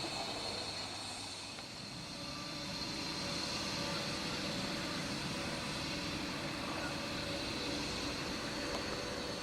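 Miniature-gauge railway train running: a steady mechanical rumble and hiss with a few steady tones, dipping slightly about two seconds in.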